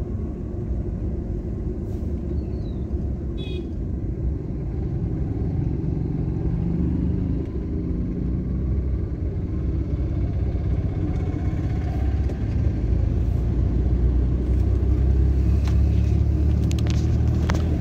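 Car engine and road noise heard from inside the cabin while driving, a steady low rumble that grows louder in the second half as the car picks up speed.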